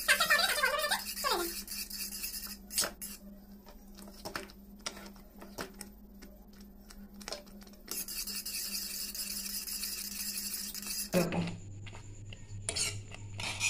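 Wire whisk stirring a thickening milk-and-custard mixture in a pan, with irregular clicks and taps of the whisk against the pan's sides and bottom. The stirring is constant so the thickening milk does not stick.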